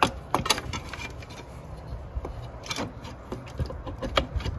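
BMW N55 intake inlet pipe being wiggled and worked free by hand among the engine-bay hoses: irregular clicks and knocks with rubbing and scraping.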